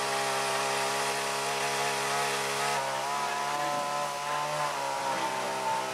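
Chainsaw running at a steady pitch.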